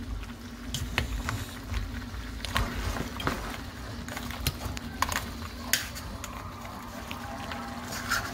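Scattered clicks and light knocks of kitchen handling (utensils and food being moved about) over a steady low hum.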